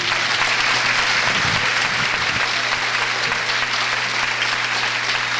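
Seated audience applauding: many hands clapping in a dense, steady patter that eases off slightly near the end.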